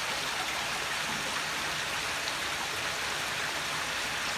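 Steady splashing and trickling of water falling over the rocks of a built pond waterfall, a constant even rush with no breaks.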